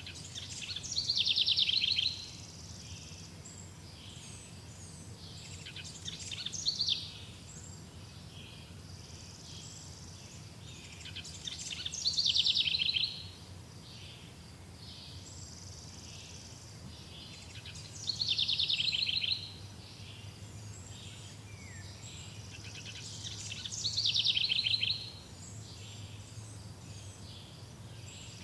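A songbird singing: a loud, rapidly trilled phrase about two seconds long, repeated five times at intervals of roughly six seconds, over a faint steady low hum.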